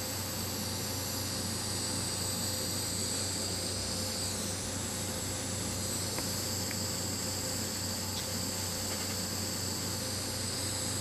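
Steady room tone: an even hiss with a low electrical hum and a thin, high-pitched whine, with no distinct event.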